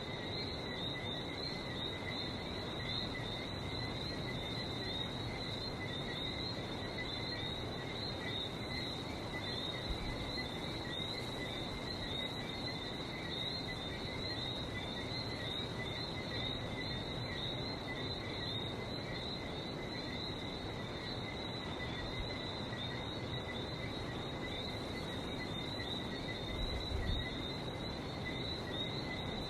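A dense night chorus of many whistling frogs, their short chirps repeating and overlapping without pause, over a steady wash of the sea.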